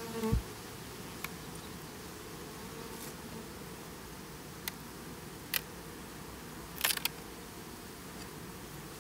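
Honeybees buzzing around an open hive, one passing close with a pitched buzz right at the start. A few sharp clicks follow as frames are worked in the wooden hive box.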